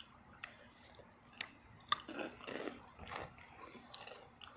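Takis rolled tortilla chips being bitten and chewed, with a couple of sharp crunches about a second and a half in, then steady crunchy chewing.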